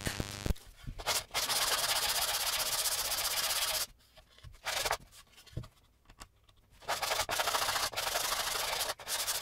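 Sanding block wrapped in 120-grit sandpaper rubbed by hand along the edge of a wooden cutting board, rounding it over. There is one long sanding stroke, a brief one about four and a half seconds in, a pause, then another long stroke near the end.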